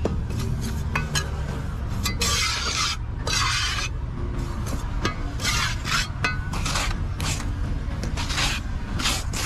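Steel trowel scraping and working wet concrete into a wooden mould, a run of short scrapes at irregular intervals.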